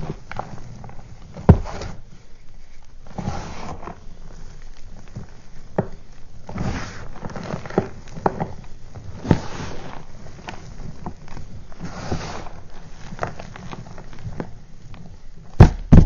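Crushed gym chalk being scooped and squeezed by hand and poured back into a plastic tub: soft powdery crunching and sifting in repeated handfuls. A few sharp knocks come between them, the loudest two near the end.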